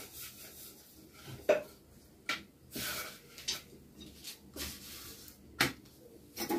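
Scattered light clinks and knocks of a steel spoon against a steel oil bowl and an iron tawa as oil is spread on a thepla, with a short scrape about three seconds in.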